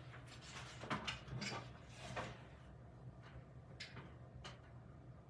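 Faint knocks and scrapes of paint jars and bottles being shifted while someone rummages through a paint cart, with a few short clatters in the first couple of seconds and two more near the end.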